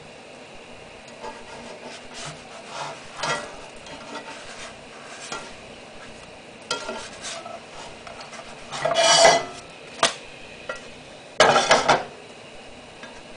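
Black spatula scraping and sliding under a large pancake in a nonstick frying pan: a series of short scrapes, the loudest about nine seconds in and again near the end, with a sharp tap just after ten seconds. The pancake sizzles faintly underneath.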